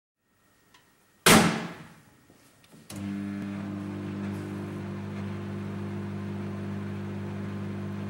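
A loud thunk, then about a second and a half later a click as a microwave oven switches on and runs with a steady low hum.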